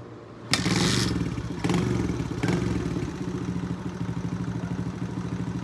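Kawasaki KLX110 pit bike's small single-cylinder four-stroke engine kick-started, catching with a sudden start about half a second in. It is revved in three short throttle blips, then settles into a steady idle with its idle-speed screw adjusted.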